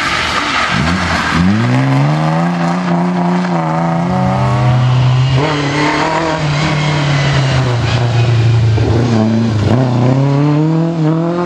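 Rally car engine revving under load through gear changes: the pitch drops under a second in, climbs and holds, shifts again about five and a half seconds in, then dips and rises once more near the end.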